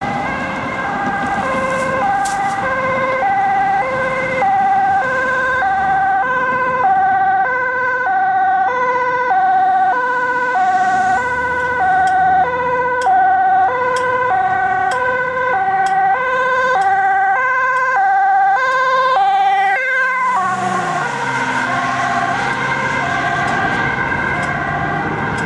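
Dutch ambulance's two-tone siren alternating high and low, about one high-low cycle a second. About twenty seconds in, its pitch drops as it passes and moves away.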